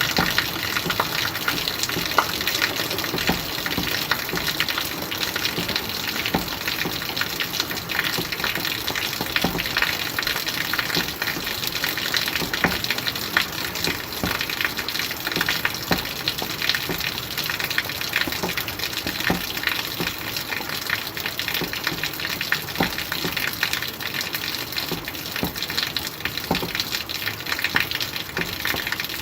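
Steady rain falling, with many separate drop hits heard close up.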